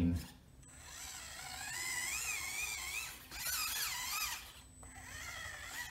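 Axial SCX24 micro crawler's brushed motor and gears whining as it drives, pitch rising and falling with the throttle. There are two spells of it with a short break about three seconds in.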